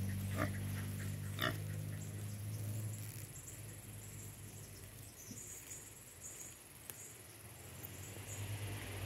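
Native boar grunting while it feeds from a metal pan, with two short sharp sounds about half a second and a second and a half in. A low steady hum fades away over the first three seconds.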